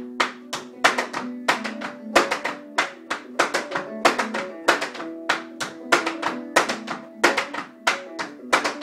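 Tap shoes striking a hard floor in a flatfooting step, the Flatfooters Alamo: sharp taps several times a second in groups, two three-sound walking steps then a rock step, over old-time plucked-string music.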